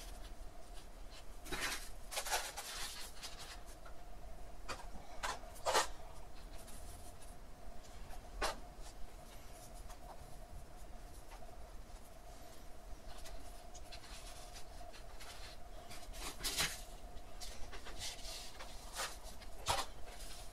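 Hands rustling and pressing perlite-rich potting mix and stones around jade plants in a plastic pot: scattered light scrapes and gritty clicks, a few sharper ones, over a faint steady hum.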